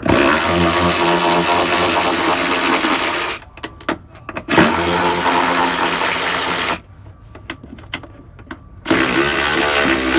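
Cordless electric ratchet whirring in three runs as it backs out bumper mounting bolts: a long run, a shorter one a second later, and a third starting near the end, with short pauses between.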